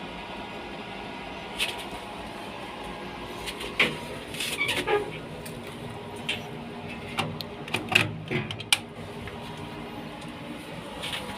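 A steady mechanical hum with scattered clicks and knocks, a dozen or so short sharp sounds spread through the middle of the stretch.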